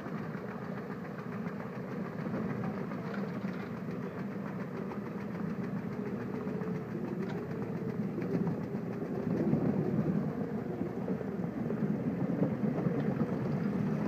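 Truxor amphibious vehicle's engine running steadily as it drives through the water with a load of water soldier on its front rake. It grows louder about two-thirds of the way through as the vehicle comes close.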